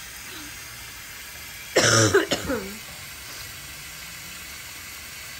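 Steady hiss of hot water escaping under pressure from a leaking hot water system, with one loud cough-like burst about two seconds in.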